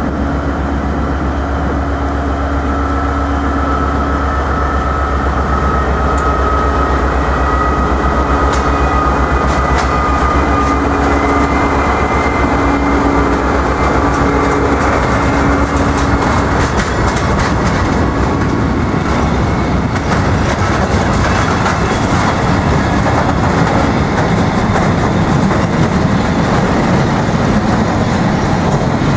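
Vossloh G2000 diesel-hydraulic locomotive's Caterpillar V16 engine running steadily as it hauls a freight train away, its low drone fading out about halfway through. Then the covered freight wagons roll past, with a steady rumble and the clickety-clack and clicks of their wheels over the rail joints.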